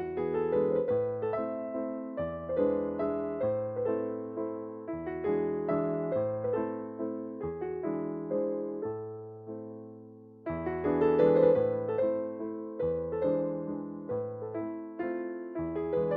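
Background piano music: a gentle melody over a repeating bass line, easing off toward the middle and picking up again louder about ten seconds in.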